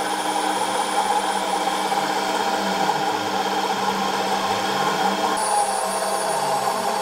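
CNC milling machine cutting a polyethylene block: a steady spindle whine over the cutting noise, with lower tones sliding up and down a few times as the machine moves.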